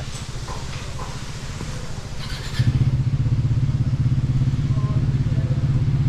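Motorcycle engine idling with a steady, even pulse, getting louder about two and a half seconds in.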